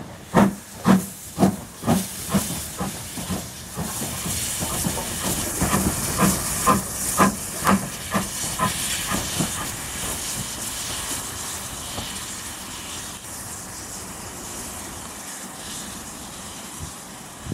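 BR Standard 4 Class 2-6-4 tank steam locomotive chuffing, with exhaust beats about two a second. From a few seconds in, a steady hiss of steam from around its cylinders comes in. The beats fade out about ten seconds in, leaving the hiss.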